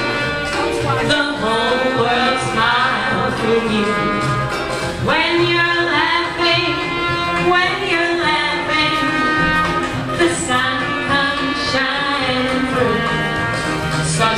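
1940s-style popular song with band accompaniment.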